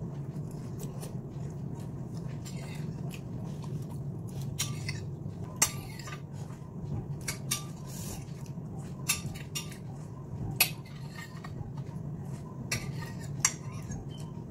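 Metal fork scraping and tapping on a plate, gathering up the last crumbs: a string of irregular scrapes and clicks, with a few sharper clinks standing out.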